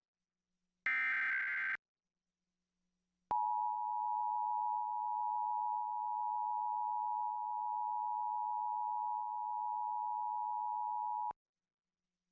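Emergency Alert System tones for a Required Monthly Test. About a second of buzzy SAME digital header data is followed by a pause. Then the EAS two-tone attention signal holds steady for about eight seconds and cuts off sharply.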